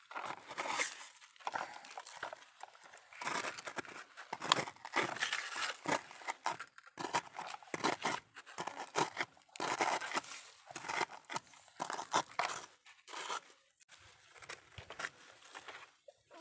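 Blue plastic toy shovel scraping and scooping dry, gritty soil, stroke after stroke, with soil spilling off the scoop.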